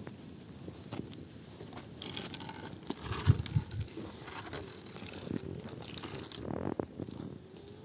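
Water poured in a thin stream from a kettle into a plastic basin, splashing and trickling. Two dull knocks about three seconds in are the loudest sounds.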